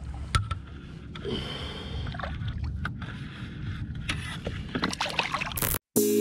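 Water sloshing and splashing beside a boat as a bass is held in the lake and released by hand, with a few sharp knocks among it. The sound cuts out shortly before the end and music starts.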